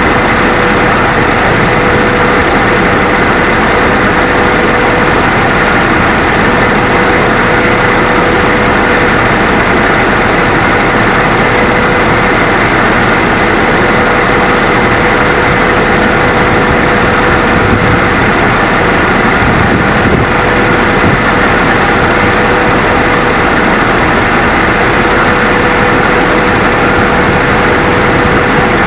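Cummins 8.3-litre compressed-natural-gas engine of a Freightliner FL80 truck idling steadily, heard close up in the open engine bay, with a steady tone running over the idle.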